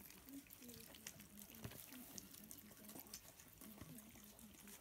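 Lancashire Heeler puppies eating from a steel bowl: faint wet lapping and smacking with small clicks, and soft, short, low grunts repeating throughout.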